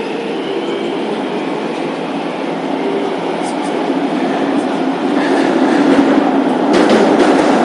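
Metro train running on the track, heard from inside the car, its traction motors droning with a sound that the uploader calls a bad motor sound. It grows louder about five seconds in, with a few rail-joint clicks near the end.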